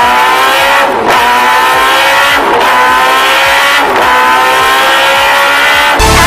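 A high-revving engine accelerating up through the gears: the pitch climbs within each gear and drops at each shift, about every one and a half seconds. Electronic music with heavy bass comes in near the end.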